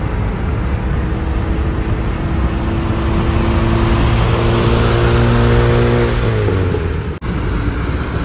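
Honda Civic EF hatchback with a turbocharged B20B engine running at speed alongside a moving car, over heavy tyre and wind noise. The steady engine note wavers and breaks about six seconds in, with a brief high falling whistle.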